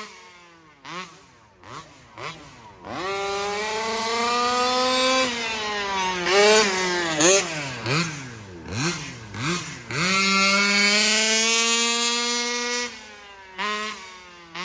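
Rovan RC car's 36cc two-stroke engine with a dual-ring piston, tuned rich, revving under throttle: a long rising pull a few seconds in, a run of short throttle blips, then another long steady pull that drops away near the end.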